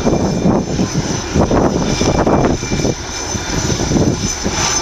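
Police helicopter flying a display pass, its rotor and turbine making a loud rushing drone that swells and fades unevenly.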